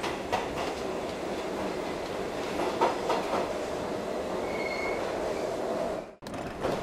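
Train running on rails, a steady rumble with wheel and track noise. A short high squeal about four and a half seconds in, and the sound cuts out for a moment near the end.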